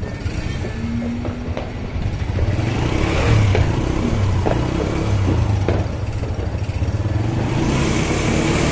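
Motorcycle engine running with a low, uneven rumble, with a few sharp pops over it.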